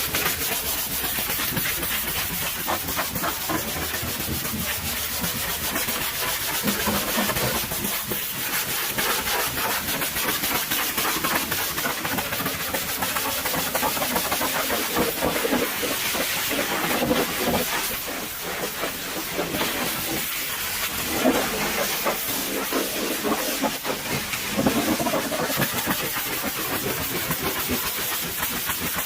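Pressure washer spraying water steadily onto a truck, a dense, even spray noise that shifts a little in tone as the jet moves.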